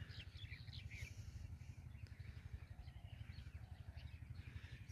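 Faint bird chirps, short and scattered, over a steady low rumble.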